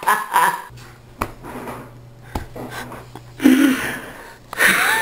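A man's breathless, wheezing laughter and heavy breaths as he recovers from laughing hard, with short voiced bursts near the end. In the quieter middle a faint steady low hum and a couple of soft clicks can be heard.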